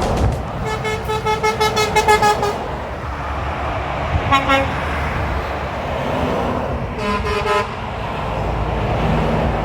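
Truck horns sounding over passing motorway traffic: a pitched horn pulsing rapidly for about two seconds, a short toot about four seconds in, and another horn blast about seven seconds in.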